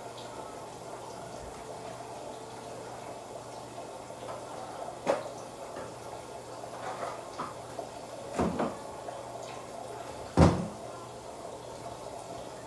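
A few sharp knocks and clicks from small objects being picked up and set down, likely makeup products and tools. There is one about five seconds in, a quick pair a little after eight seconds, and the loudest just after ten seconds, over a steady low hum.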